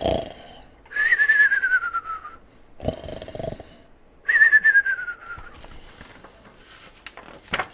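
A man imitating a cartoon snore, twice: a short rasping snort on each in-breath, then a whistle on the out-breath that falls in pitch.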